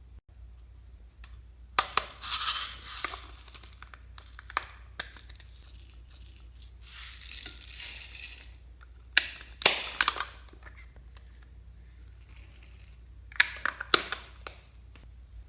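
Crunchy slime being squished and pressed, crackling and crunching in four bouts with a few sharp pops.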